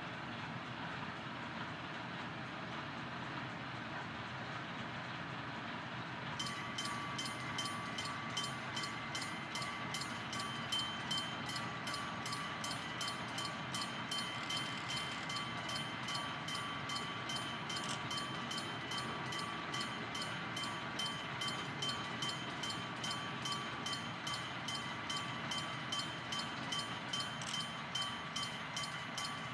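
Electric bell of a railway level crossing starts ringing about six seconds in, a rapid, continuous ringing that keeps on. Under it is the steady low running of a DD352 diesel locomotive waiting to depart.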